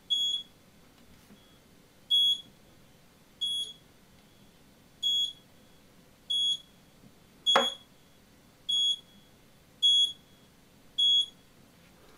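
Buzzer of a homemade 134 kHz RFID animal-tag reader beeping nine times at irregular intervals. Each short, high beep signals a successful read as the PVC-pipe antenna is passed over EID ear tags. A knock sounds about seven and a half seconds in, together with one of the beeps.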